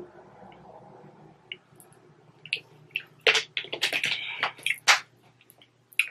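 Faint gulps of water, then from about three seconds in a cluster of sharp crinkles and clicks as a plastic water bottle is handled and its cap screwed back on.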